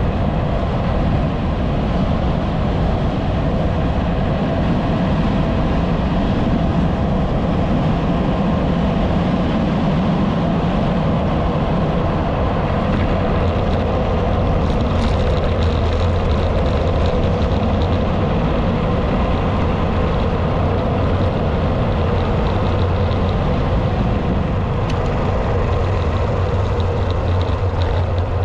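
Steady rush of wind and rolling road noise on the microphone of a camera mounted on a bicycle riding along an asphalt road.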